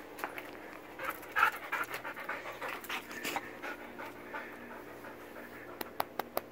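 Dog panting in quick breaths, heaviest in the first few seconds, out of breath after a bout of zoomies. A few sharp clicks come near the end.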